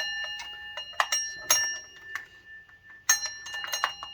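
Metal water pump pulley on a 2004 Dodge Ram 1500 clanging when struck several times. Each hit rings on like a bell.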